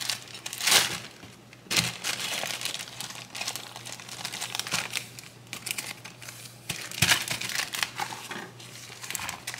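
Clear plastic zipper storage bag crinkling as it is handled, with louder rustles about a second in, near two seconds, and again about seven seconds in.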